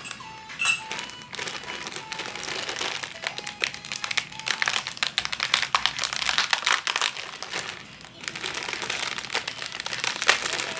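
Plastic snack packet crinkling and crackling as it is handled and worked open in the hands, a dense run of crackles with a short lull about eight seconds in.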